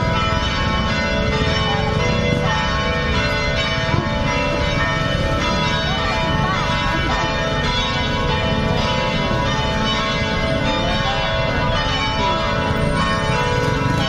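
Church bells cast by Royal Eijsbouts ringing together in the cathedral tower: many overlapping, sustained bell tones pealing without a break, over a steady low rumble.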